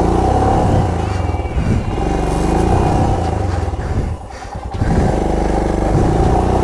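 Royal Enfield Himalayan's single-cylinder engine revving repeatedly in surges as the bike labours on a loose, rocky climb, easing off about four seconds in and then revving again.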